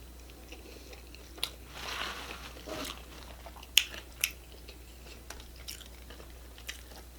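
A person biting and chewing a crunchy hard-shell taco, with a few sharp cracks of the shell breaking, the sharpest near the middle, between softer chewing.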